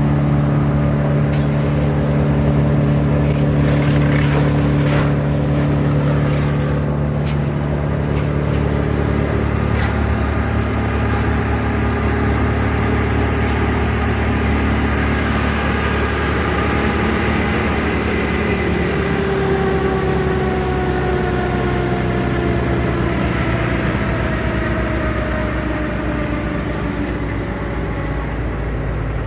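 Heavy tree-trimming machine's engine running steadily and loudly, its pitch slowly falling through the second half, with a few sharp cracks or clicks in the first third.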